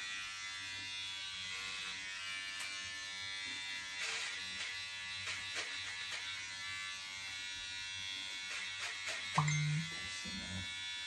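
Electric hair clippers buzzing steadily as they are run through hair on a person's head, with a few light clicks. A short low vocal sound comes about nine and a half seconds in.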